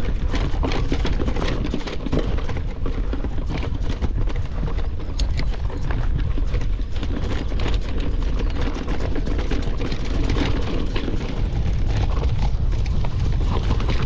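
Mountain bike ridden over a rough gravel trail: a steady low rumble from tyres and frame, with many small rattles and clicks.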